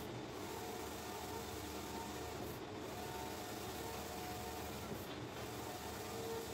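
Large-format flex banner printer running: the ink carriage shuttling back and forth across the banner over a steady whir of motors and cooling fans, with a brief dip in the sound about every two and a half seconds.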